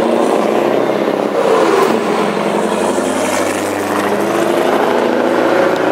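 Diesel engines of two semi-truck tractor units pulling hard as they pass close by, the engine note rising and falling.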